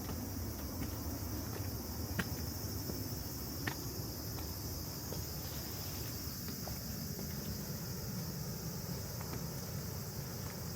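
A steady, high-pitched chorus of summer insects over a low, steady rush of the rain-swollen river. Two short sharp clicks come about two and three and a half seconds in.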